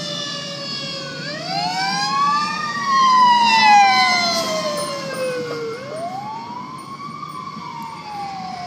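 Fire-rescue truck sirens on the Federal Signal wail setting, the pitch sweeping slowly up and down every few seconds, with more than one siren overlapping. The sound swells as the rescue truck passes close, about three to four seconds in, then fades.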